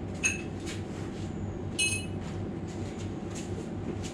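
Two light metallic clinks, each ringing briefly, about a second and a half apart, over a steady low electrical hum.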